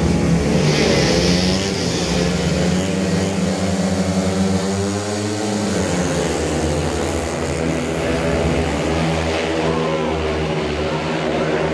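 Several 500 cc single-cylinder speedway bikes revving at the start gate, their engine pitches rising and falling together, with a change in the engine note about halfway through.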